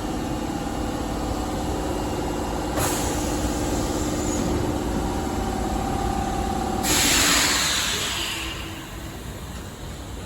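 Osaka Metro 22 series subway train standing at the platform: a steady electrical hum under a compressed-air hiss, with a louder blast of air about seven seconds in that fades away over a couple of seconds.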